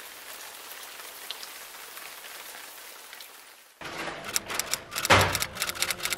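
Steady hiss of rain for the first few seconds. Then a run of rustling and knocking from something being handled, loudest about a second after it begins.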